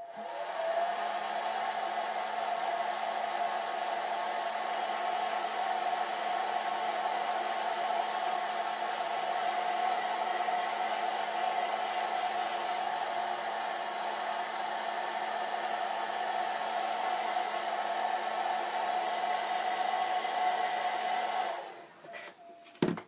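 Handheld hair dryer switched on and running steadily, a constant tone over its blowing air, drying freshly brushed acrylic paint. It cuts off about a second and a half before the end, followed by a single sharp knock.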